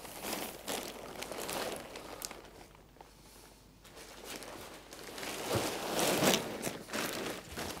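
Tent fabric rustling and crinkling as the deflated tent is folded up by hand, with a quieter lull about halfway through and louder rustling near the end.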